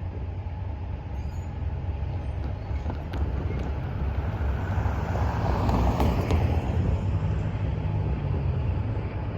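Freight train rolling past: a steady low rumble of wheels and cars on the track that swells a little around the middle, with a few faint clicks.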